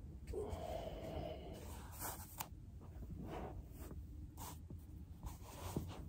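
Rustling and scuffing of a person shifting on a carpeted floor and handling a foam roller, with a few soft knocks and scrapes and a sharper tick near the end.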